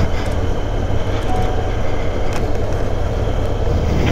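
Steady rumble of a motorcycle riding along: engine and road and wind noise mixed, with no break.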